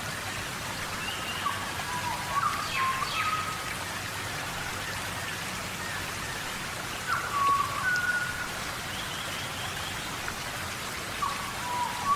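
Steady tropical rainforest rain falling, with a bird calling through it: a short phrase of whistled notes and quick falling slurs, repeated three times, about every four to five seconds.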